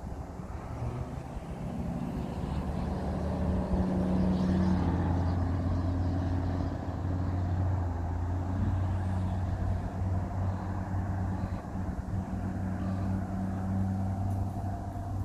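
An engine running with a low, steady hum, growing louder over the first few seconds and then holding steady.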